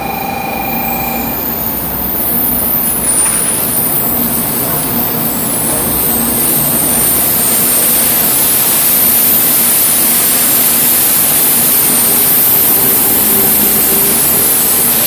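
Shinkansen bullet train moving along the platform: a loud, steady rushing noise with a strong hiss, building over the first few seconds and then holding.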